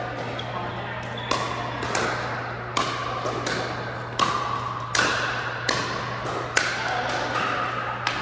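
Pickleball rally: paddles strike the hollow plastic ball in a quick back-and-forth, about eight sharp pops roughly every 0.7 s, each echoing briefly in the gym hall, over a steady low hum.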